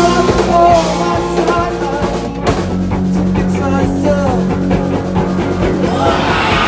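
Live rock band playing: distorted electric guitars over a drum kit, loud and steady.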